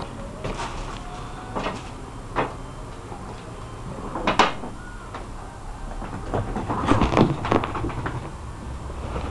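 Irregular knocks and thumps of kittens scampering and pouncing on a wooden parquet floor, the loudest about four seconds in and a quick cluster around seven seconds.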